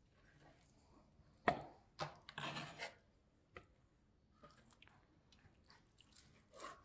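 Kitchen knife cutting boiled moose lip on a cutting board: a sharp knock of the blade on the board about a second and a half in and another at two seconds, then a brief scraping rustle and a few lighter taps.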